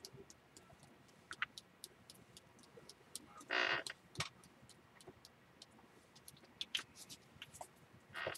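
Faint, irregular light clicks and taps from a small jar of Color Burst powder being tapped over a stencil and handled. One louder, longer rustle a little over three and a half seconds in.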